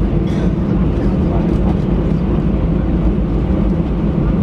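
Airbus A319 cabin noise while taxiing after landing: a steady low rumble of the jet engines and airframe heard from inside the cabin.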